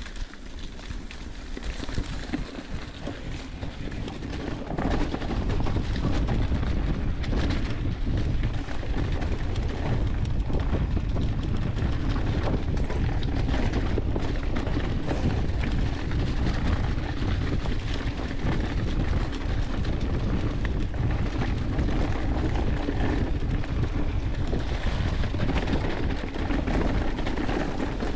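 Mountain bike riding down a leaf-covered dirt singletrack, heard from a camera mounted on the bike. Wind rumbles steadily on the microphone under the tyres rolling over dry leaves and dirt, with frequent knocks and rattles as the bike goes over bumps. It gets louder about five seconds in.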